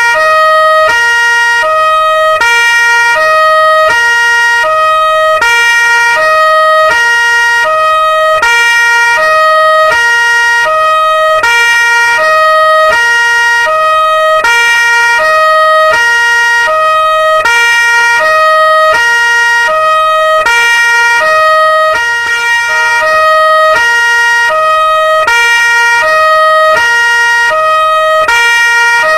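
Police two-tone siren wailing continuously, switching back and forth between a low and a high pitch about every half second, with a steady high whine beneath.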